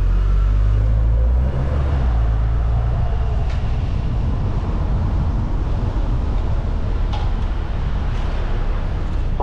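Car driving through city streets: a steady low rumble of engine and tyre-on-road noise, a little heavier for the first second and a half before easing, with a few faint ticks.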